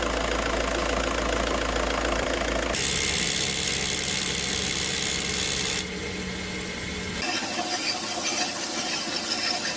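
Short clips of car engines running, cut together one after another, with the sound changing abruptly about three, six and seven seconds in.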